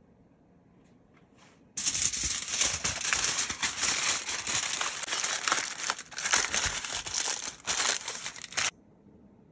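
Aluminium foil crinkling as it is folded by hand around an ear of corn on the cob: a dense run of crinkles and sharp crackles. It starts about two seconds in and stops abruptly about a second before the end.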